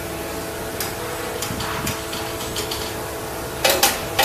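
Sharp metallic knocks and clanks from maintenance work on an M1 Abrams tank, faint and scattered at first, then two louder knocks close together near the end, over a steady machine hum.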